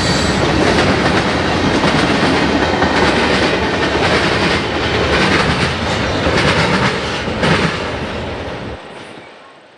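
Freight train cars rolling past at speed, with a steady rumble and the clickety-clack of wheels over rail joints. The sound fades out near the end.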